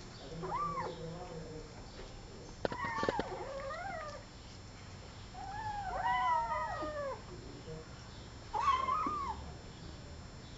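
Kittens meowing: four short, high mews a couple of seconds apart, each rising and falling in pitch. A few sharp knocks come just before the second mew.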